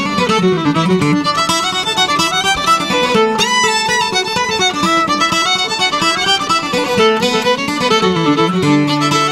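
Fiddle and acoustic guitar playing an instrumental bluegrass passage, the bowed fiddle carrying the melody over the guitar's rhythm, with a long held note starting near the end.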